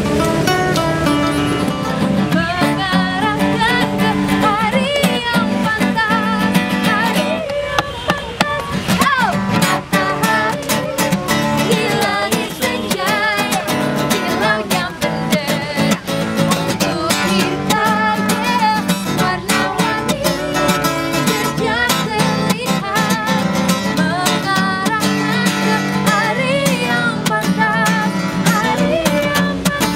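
Acoustic guitar strummed steadily, with a woman singing lead over it into a microphone: a live two-piece acoustic performance.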